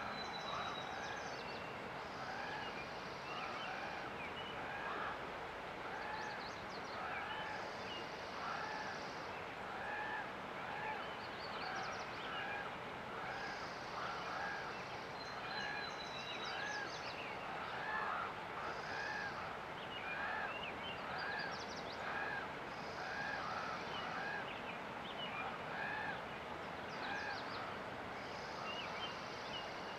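Wild birds singing and calling over the steady rush of a river. A run of short arching calls, a little over one a second, repeats throughout, and high buzzy trills break in every few seconds.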